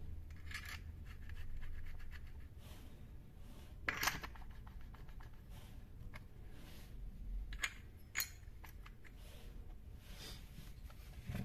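Metal chainsaw parts being handled and fitted by hand: light scraping and rubbing with a handful of sharp clicks, the loudest about four seconds in, as the clutch drum goes onto the crankshaft.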